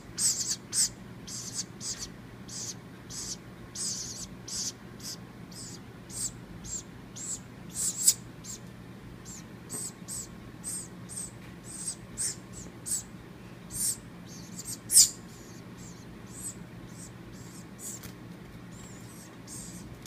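Baby woodpecker giving short, high, hissy calls over and over, about one every half second, two of them louder. The calls thin out over the last few seconds.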